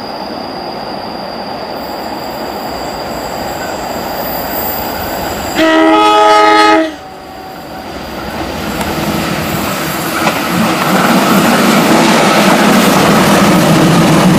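Horn of a KAI CC204 diesel-electric locomotive sounding one long blast about halfway through as the train approaches. Over the last few seconds the locomotive's engine rumble and the wheels rattling over the rails grow louder as it comes close and passes.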